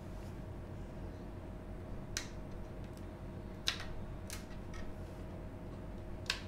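A few sharp clicks of fingers and fingernails on the plastic casing of a Linksys E900 router as it is handled, over a faint steady low hum.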